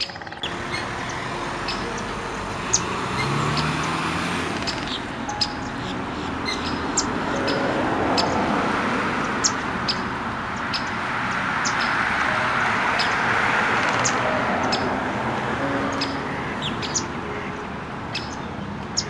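Outdoor ambience: a steady rushing noise that swells and eases, with many short, high bird chirps scattered over it.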